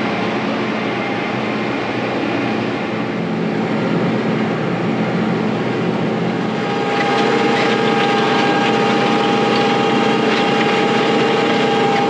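Tractor engine running under load while pulling a chisel plow through the ground, heard inside the cab. About seven seconds in it gets a little louder and a steady whine comes in.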